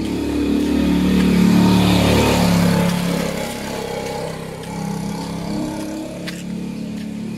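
A motor vehicle's engine passing close by: it grows louder, is loudest about two seconds in, then fades away.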